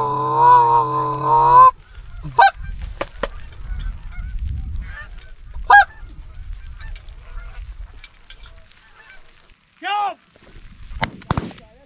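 Canada geese honking: a long wavering honk at the start, then single honks spaced a few seconds apart. A few sharp clicks come near the end.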